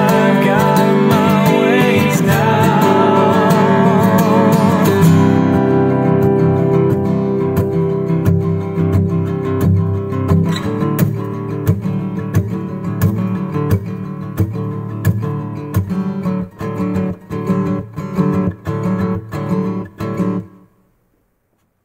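Instrumental outro of a folk song: acoustic guitar strumming, with a wavering held melody line over it for the first five seconds. After that the guitar plays alone, its strokes thinning to single picked notes until it stops just before the end.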